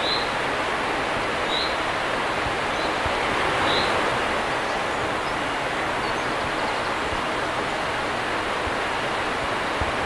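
River water rushing steadily over a low concrete weir and through the shallow rapids below it. A few short high bird chirps sound over it in the first four seconds.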